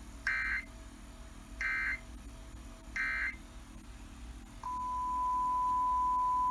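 Emergency Alert System end-of-message code: three short, identical bursts of screechy digital data about 1.3 seconds apart, signalling that the broadcast warning is over. About three-quarters of the way through, a steady single tone starts and holds.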